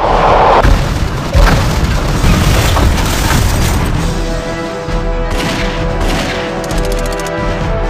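Explosion sound effects over background music: a big blast at the start and a second boom about a second and a half later.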